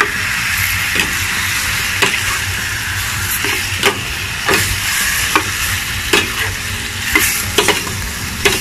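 Chicken pieces frying in oil with garlic and onion in a stainless steel pan, sizzling steadily while a metal spoon stirs them, clinking and scraping against the pan about once a second.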